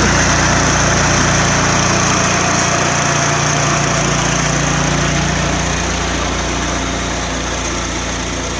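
1969 John Deere 140 garden tractor's single-cylinder engine running steadily, growing slightly quieter toward the end.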